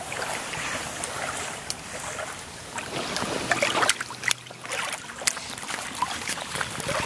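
A small hooked fish being pulled through shallow water onto a sandy bank, splashing at the water's edge, then flapping and slapping on the wet sand with several sharp strokes about halfway through.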